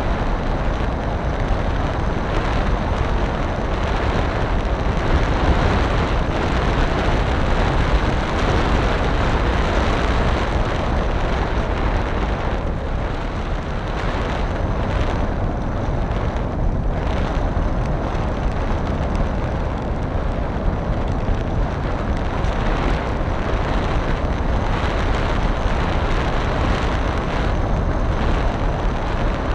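Steady, loud rush of wind and propeller noise on a flying FPV model aircraft, heard from on board, with no clear motor pitch.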